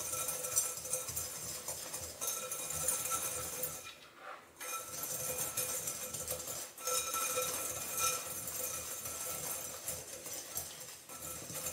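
Wire balloon whisk stirring dry custard ingredients (sugar, cornstarch, flour) in a glass bowl: a steady scraping and rustling with the wires ticking against the glass, pausing briefly about four seconds in.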